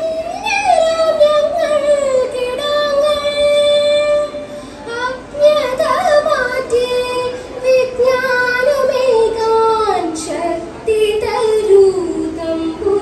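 A young woman singing a slow prayer song solo into a microphone, amplified over a PA, with long held notes that slide and waver between pitches.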